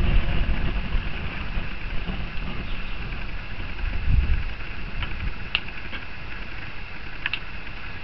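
A Vax upright vacuum cleaner burning: the flames on its plastic body hiss and crackle steadily, with gusts of low rumble swelling about halfway through and a few sharp pops a little later.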